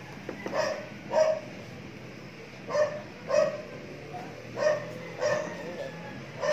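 A dog barking: short barks in pairs about half a second apart, roughly one pair every two seconds.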